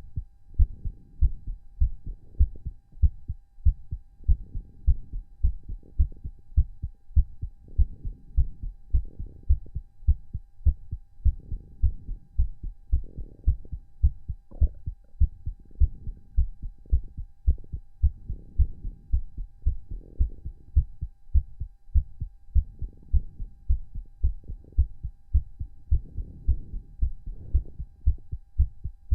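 A man's heart beating fast and hard after exercise, heard close up as rapid, even low thumps, with heavy breathing in the background.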